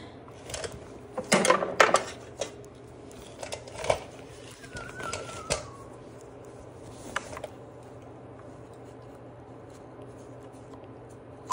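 Hand tools (needle-nose pliers, a long screwdriver) clicking and clinking on the steel axle and pinion gear of a Husqvarna mower's drive wheel. A quick cluster of sharp metal clicks comes in the first two seconds, a few single clicks follow, and then the clicking gives way to a faint steady hum.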